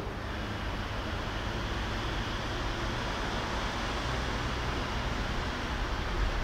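Steady rushing noise with a low rumble and no distinct events: open-air station platform ambience with wind on the microphone.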